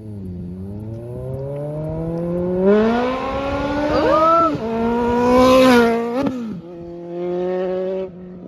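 Suzuki Bandit 1250's inline-four engine at full throttle, its pitch climbing steadily as it gets louder, then dropping sharply about six seconds in and settling to a lower, steadier note.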